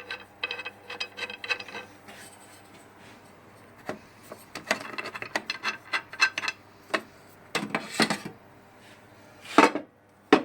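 Aluminium fence parts being handled on a table saw: a run of ringing metal clinks, a short lull, then a busy stretch of knocks, rattles and rubbing, and one loud scrape near the end.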